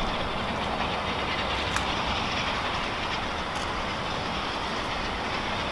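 Unrebuilt Bulleid Battle of Britain Pacific steam locomotive approaching from a distance under steam: a steady rushing noise of exhaust and running train, with a couple of faint clicks.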